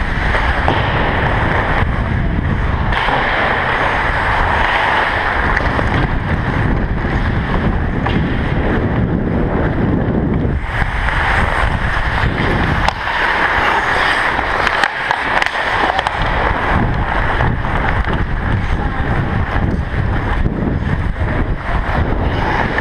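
Loud, continuous rushing noise from ice hockey skating, picked up by a GoPro Hero 3 Black worn by the player, muffled by its housing. It mixes air rushing over the camera with skate blades on the ice, and eases briefly about halfway through.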